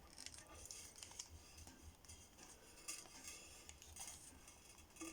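Near silence, with a few faint clicks and rustles of hands handling the knife and its leather case.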